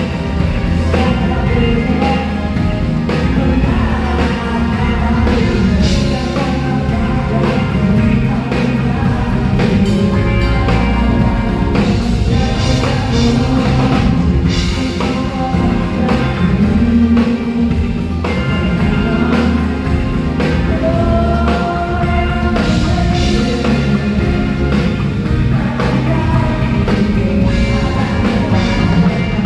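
Live band playing a rock song with drum kit and a singing voice, during a sound check.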